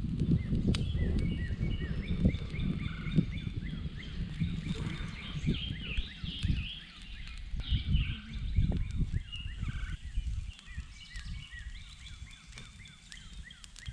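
Dry sticks rustling and knocking together as a bundle of kindling is piled onto a small campfire. The handling noise is busiest in the first ten seconds and dies down toward the end, with birds chirping and calling throughout.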